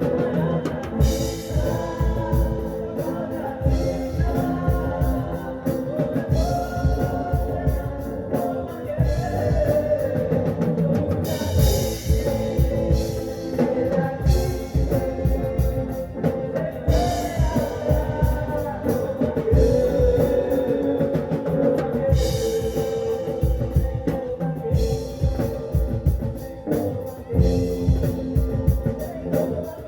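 A rock band playing live, with singing over drums and guitars.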